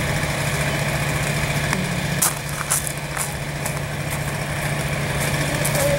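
A steady engine drone, like an idling engine, with a constant low hum. A few light clicks or knocks come between about two and three and a half seconds in.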